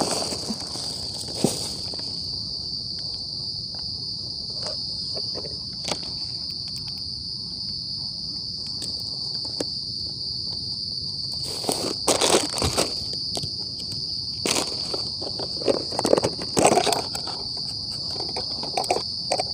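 Night insects chirring steadily in one high, unbroken band. Over it, a few short rustles and knocks of food packaging and containers being handled, about twelve seconds in and again near the end.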